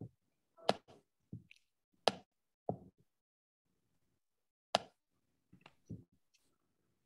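A handful of short, sharp knocks and taps, irregularly spaced, with quiet between them.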